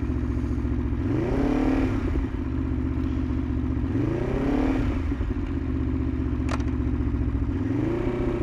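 Aprilia Tuono V4 1100 RR's V4 engine idling just after being started, blipped three times, each rev rising and dropping back to idle within about a second.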